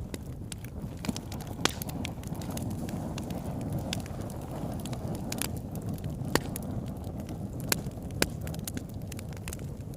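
Campfire burning: a low, steady rumble of flames under sharp pops and crackles of burning wood, the loudest pops coming about a second and a half in and several times in the second half.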